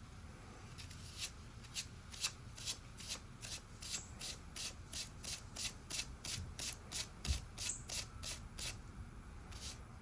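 Hand sanding with 3000-grit sandpaper on a freshly painted wheel rim, to knock down paint runs: quick back-and-forth strokes at about three a second, starting about a second in and pausing briefly near the end.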